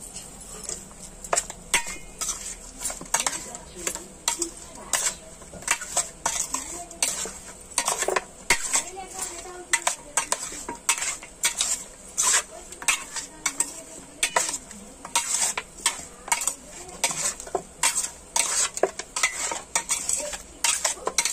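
Spoon stirring raw fish pieces coated in turmeric, chilli powder and salt in a stainless steel bowl, scraping and clinking against the metal. The clinks come quick and irregular, a few a second.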